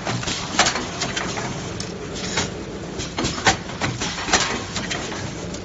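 Soap bar wrapping machine running: a steady mechanical clatter, with sharp clacks about once a second from its moving parts.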